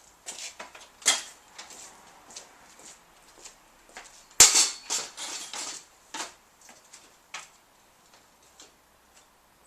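Irregular clicks and light knocks, the loudest a sharp knock about four and a half seconds in, followed by a quick cluster of smaller clicks.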